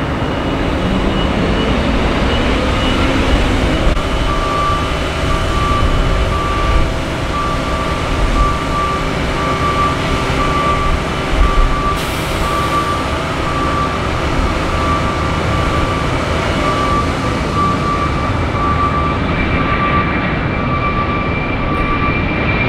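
Twin jet engines of a UPS Airbus A300 freighter at takeoff power on its takeoff roll: a steady, continuous jet rush, with a tone rising over the first few seconds. A short high beep repeats about twice a second through most of it.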